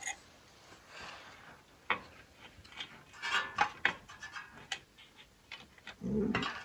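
Scattered light clicks and knocks of metal parts and tools being handled during engine and gearbox assembly, with a duller thump near the end.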